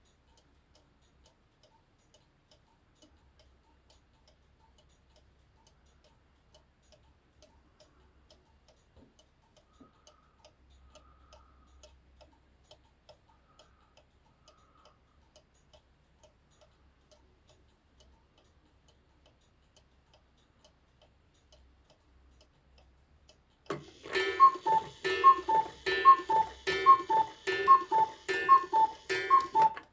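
Hunter cuckoo clock ticking faintly and evenly. Near the end it strikes the hour: a quick run of two-note cuckoo calls, high then low, each paired with a sharp strike.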